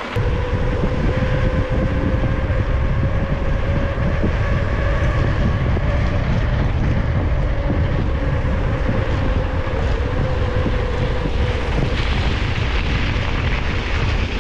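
Wind buffeting the microphone of a moving mountain bike's action camera, over the rolling noise of the tyres on dirt road. A faint steady hum fades out near the end.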